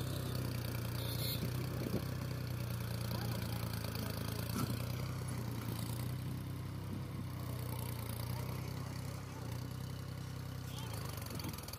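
New Holland tractor's diesel engine running steadily at low revs while pulling a trailer heavily loaded with sugarcane.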